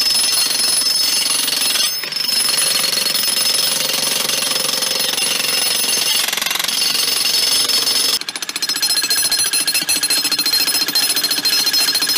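Electric jackhammers (demolition breaker hammers) chiseling into concrete: a steady rapid hammering with a high whine. It breaks off briefly about two seconds in. From about eight seconds the blows come sharper and more distinct as a second breaker works the slab.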